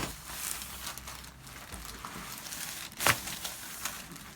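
Crinkling rustle of movement on a chiropractic treatment table. Two sharp cracks, one at the very start and one about three seconds in: joints popping during a chiropractic adjustment.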